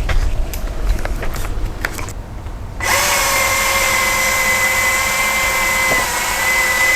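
Milwaukee M18 FCHSC cordless chainsaw's electric motor starting abruptly about three seconds in and running at a steady high-pitched whine, after a few light knocks and handling noises.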